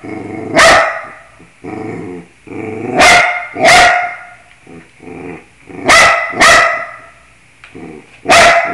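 A dog barking: six loud barks, two of them in quick pairs about half a second apart, with quieter, lower vocal sounds between them.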